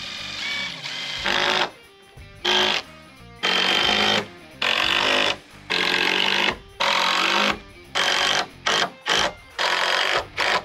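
DeWalt cordless drill driving screws into pressure-treated lumber in about ten short runs, each under a second, with brief pauses between them.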